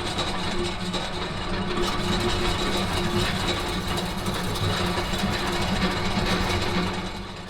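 Steady machinery running noise with a low hum and a thin high whine, fading out near the end.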